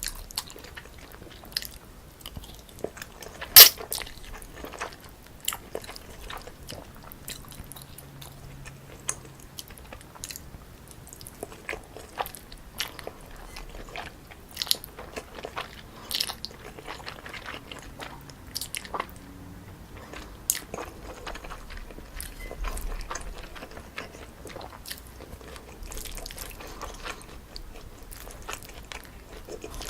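Close-miked eating: a person biting into and chewing cold spicy jjolmyeon noodles with crunchy toppings, many small sharp wet clicks and crunches. One louder sharp click comes about three and a half seconds in.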